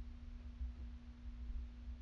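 A steady low hum, one even tone, over an uneven low rumble.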